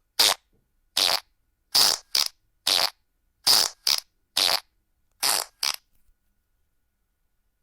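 A run of about ten short fart sound effects from a prank sound app, one after another, some in quick pairs.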